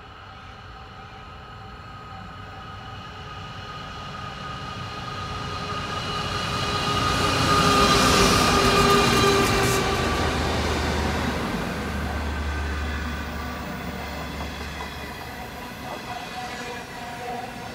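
Two NR class V16 diesel locomotives hauling a long passenger train approach and pass close by. The sound builds steadily to its loudest about eight seconds in, then the passenger coaches roll past on the rails and the sound slowly fades.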